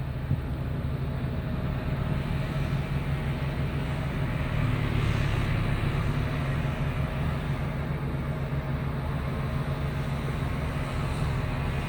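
A vehicle's engine running steadily with a low hum under an even rushing noise, with a single click just after the start.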